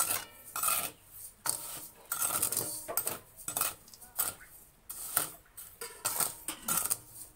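Metal spatula scraping and stirring chickpeas through hot grit in a stainless-steel wok. The rasping strokes come about once or twice a second, with light metallic clinks against the pan.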